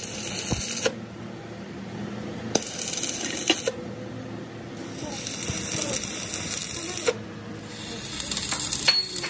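Stick-welding arc crackling and sizzling in four short runs of one to two seconds each, with pauses between, as weld is laid onto the broken end of a steel truck drop spindle to build it back up.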